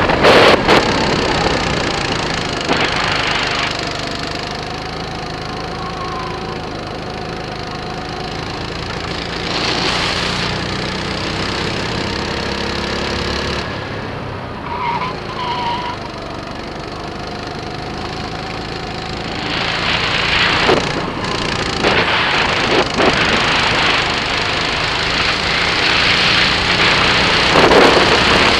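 Birel N35 rental kart's engine running on track, its pitch rising and falling with the throttle. A rushing noise swells and fades about four times.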